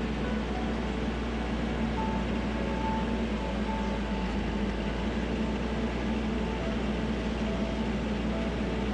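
A vehicle engine running steadily with a low, even drone, with background music and short held notes over it.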